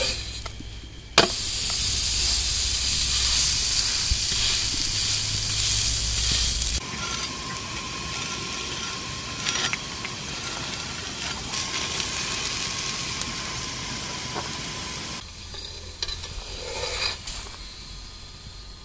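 Aloo paratha sizzling in melted fat on a flat tawa griddle. The sizzle starts suddenly about a second in and drops in level twice, around seven and fifteen seconds in.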